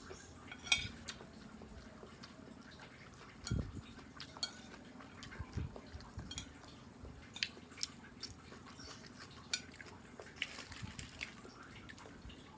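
Metal spoon clinking and scraping on a plate as it scoops up dry stir-fried instant noodles: scattered sharp clicks throughout. Two dull low thumps come about three and a half and five and a half seconds in.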